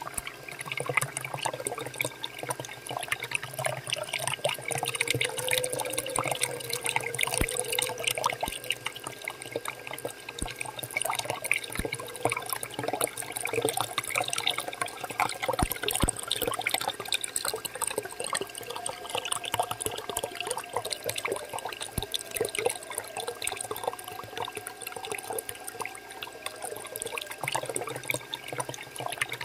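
Water pouring from a small pump's outlet pipe and splashing steadily into a muddy puddle.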